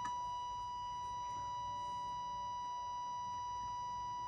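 Steady test tone from the EICO 150 signal tracer, held at one pitch with a row of buzzy overtones above it. The overtones are distortion: the tracer's amplifier is not working properly after its transistors were replaced.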